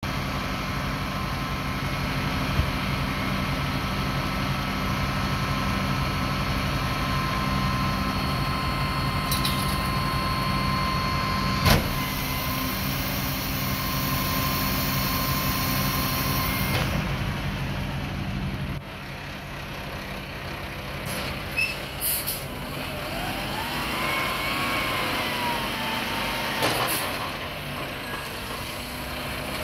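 Mack MRU front loader garbage truck's diesel engine running. About twelve seconds in there is a sharp crack and several seconds of air hiss. Later the engine note drops lower, with a few clanks and a rising-then-falling whine.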